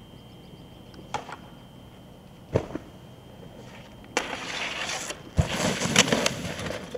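A sharp knock, then from about four seconds in a snowboard scraping down a metal handrail. Another knock follows, and the board's base hisses as it slides through wet slush and snow.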